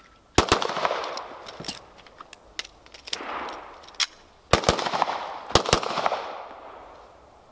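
Pistol shots fired one-handed, each trailing off in echo: two quick shots, then a few light clicks and knocks of a one-handed emergency magazine change, then several more shots, some in quick pairs, with balloon targets bursting among them.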